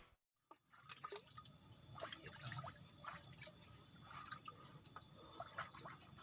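Near silence, broken only by faint scattered clicks and small drips.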